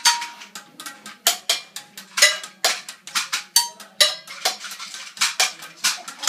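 Improvised percussion on household objects: a small plastic container and a thin stick tapped in a loose, uneven rhythm of sharp clicks and clinks, about two to three a second, a few ringing briefly.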